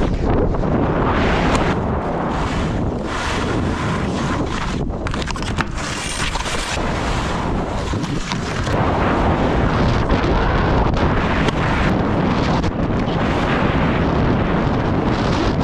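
Wind buffeting the microphone while skiing downhill, mixed with skis scraping over groomed snow in many short streaks.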